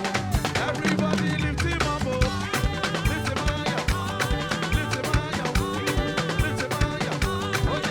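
Live band playing upbeat praise music with a quick, steady drum beat.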